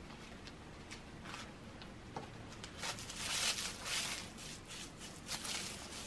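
Hands handling and twisting crumpled brown paper strips, giving irregular rustling and crinkling, loudest in the second half.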